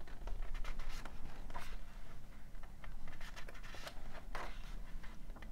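Pages of a large hardback book being turned: soft paper rustling and sliding, with a few brief crisp swishes.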